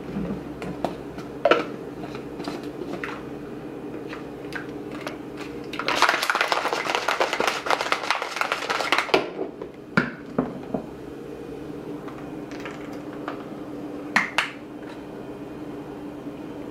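Plastic shaker bottle being shaken hard for about three seconds partway through, the pre-workout drink rattling and sloshing inside, with a few sharp clicks of the plastic lid being handled before and after.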